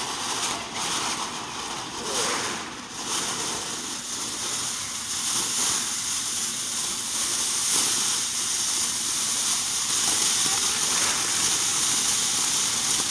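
Ground fountain firework spraying sparks with a steady hiss, with a couple of brief surges in the first few seconds.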